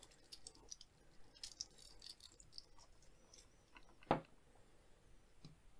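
Faint handling noise of a steel watch bracelet and a hand-held diamond tester being worked against a watch caseback: light clicks and rattles, with one sharper tap about four seconds in. The tester gives no beep, as the caseback crystal tests as mineral glass rather than sapphire.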